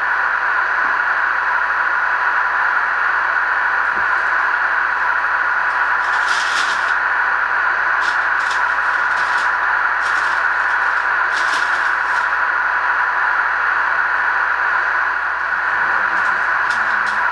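Onboard Proto-Sound 3.0 system of an MTH HO-scale R17 subway car model playing its standing-idle sound through the car's small speaker: a steady hiss, broken about half a dozen times by brief higher hisses.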